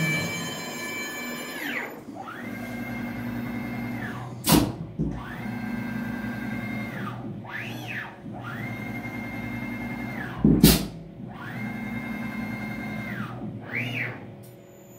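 CNC router running an automatic tool change. The spindle winds down over the first couple of seconds. Then the axis drive motors whine up, hold and wind down through several rapid moves. Two sharp blasts, about 4.5 s and 10.5 s in, mark the air-operated spindle releasing one tool into the rack and clamping the next.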